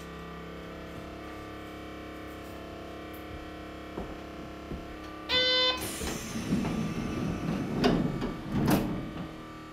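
Steady hum inside an old streetcar. A brief buzzer sounds about five seconds in, followed by rumbling and two knocks near the end.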